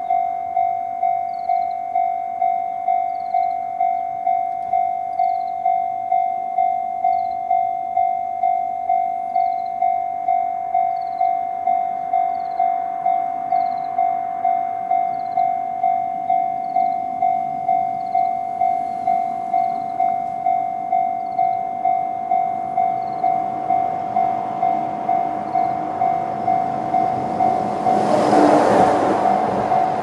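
Japanese railway level-crossing alarm in the JR East tone: an electronic bell dinging steadily, about one and a half strikes a second. Late on, the rumble of an E129-series electric train builds under it and becomes the loudest sound a couple of seconds before the end.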